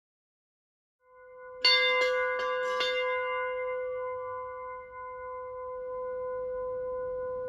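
Bell-like chime: a held tone swells in about a second in, then four quick struck notes about half a second apart, whose ringing holds on and slowly fades.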